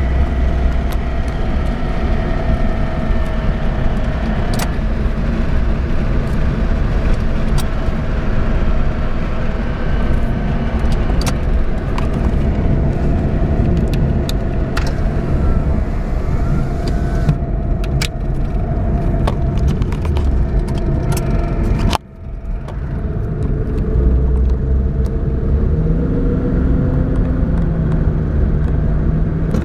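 Suzuki Alto automatic being driven: steady engine and road rumble with a constant whining tone and scattered light clicks. A short sudden dip comes about three quarters through, then a tone that rises slowly. This is the deceleration noise that the owner cannot place between the automatic transmission, differential, bushes and drive shafts.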